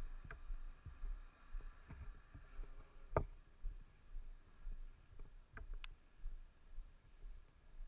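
Low, uneven rumble and thuds of a motorcycle riding over a rutted dirt road, with a few sharp knocks, the loudest about three seconds in and two more close together near the end.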